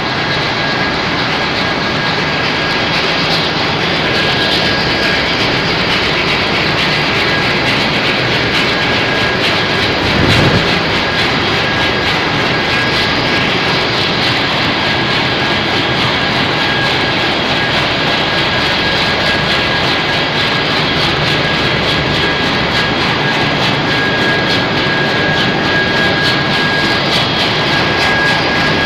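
Steady, loud roar of a very large oil tanker's engine room, its machinery running together, with a thin steady high whine over it. A brief low thump comes about ten seconds in.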